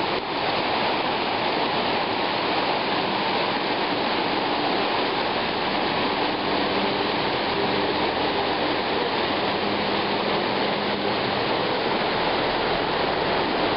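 Muddy creek in flash flood, rushing and churning over rocks as whitewater: a steady, unbroken rush of water.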